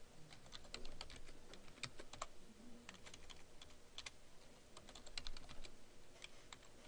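Computer keyboard typing: keystrokes come in short irregular runs with pauses between them, as text is edited in a code editor.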